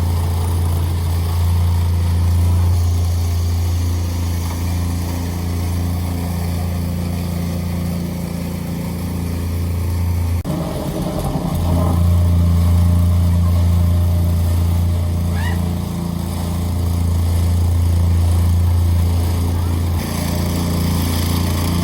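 Gas-powered vibratory plate compactor running steadily as it is walked back and forth over the ground, compacting the soil. The hum briefly breaks up about ten seconds in.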